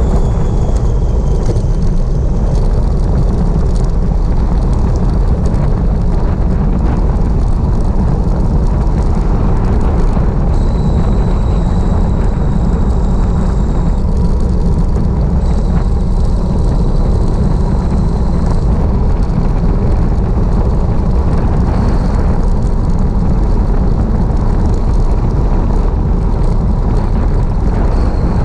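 Wind rushing over the microphone of a cyclist descending fast on a road bike, a loud, steady deep rush. A faint high whistle comes and goes, about ten seconds in and again a little later.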